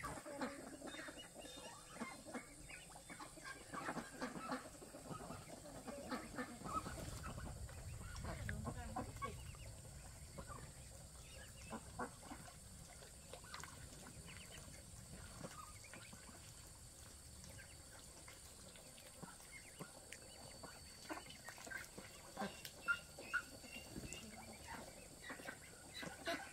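Faint clucking and calls of domestic fowl, with scattered small knocks and a low rumble about a third of the way in.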